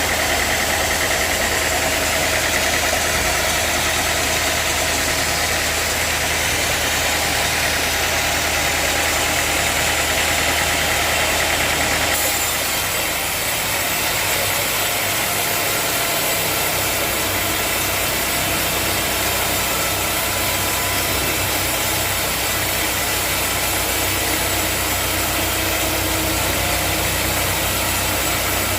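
Sawmill machinery running steadily, a constant engine-like drone with hiss. About twelve seconds in, the sound changes abruptly, losing some of its high hiss and settling into a different low hum.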